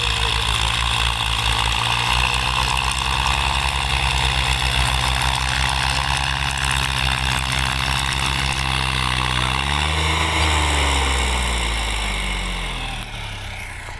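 Farm tractor's diesel engine running steadily, its pitch briefly rising and falling back about ten seconds in, then growing quieter near the end.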